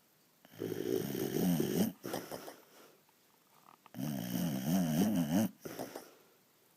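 A pet lying on a person snoring heavily: two long snores about three and a half seconds apart, each lasting about a second and a half with a wavering, wobbling pitch, and near-quiet pauses between them.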